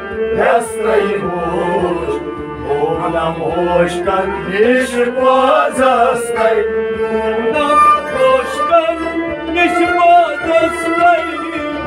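Kashmiri Sufi devotional music: men singing a kalam over bowed and plucked string instruments, with a steady percussion beat.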